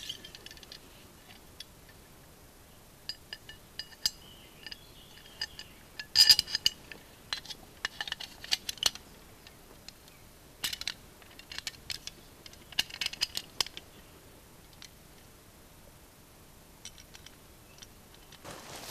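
Small hard hand tools clinking and clicking as they are handled, in scattered clusters of light taps with a short ring, the loudest cluster a little under halfway through.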